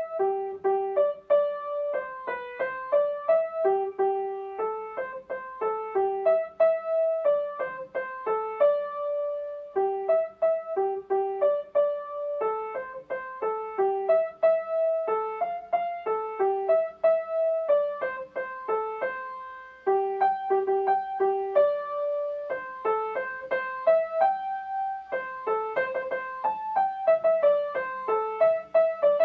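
Instrumental piano music: a continuous melody of separate, clearly struck notes over an accompaniment, with no singing.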